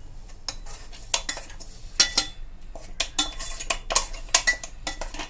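A spoon clinking and scraping against a mixer-grinder jar and bowl as ground sesame and jaggery is scooped out, in a dozen or so sharp, irregular knocks, some of them ringing briefly.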